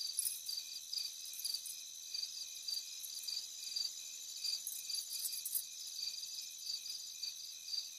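Crickets chirping in a steady high-pitched chorus, pulsing a few times a second, with a thin higher hiss that swells twice.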